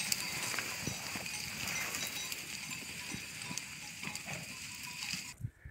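A flock of sheep on the move through scrub: many small bells clinking at different pitches, with hooves knocking and trampling through the brush. The sound cuts off abruptly shortly before the end.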